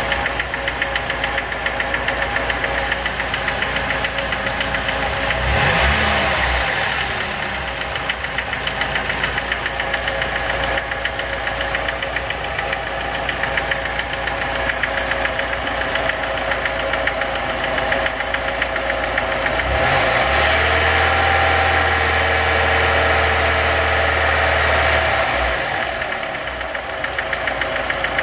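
Car engine running with a rapid, even knock. It is revved briefly about six seconds in, then held at higher revs for about five seconds near the end before dropping back to idle.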